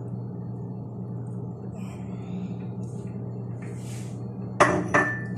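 Steady low hum with faint soft sounds of raw eggs tipped from a bowl onto shredded cabbage. Near the end, two sharp knocks of kitchenware about half a second apart, the second ringing briefly.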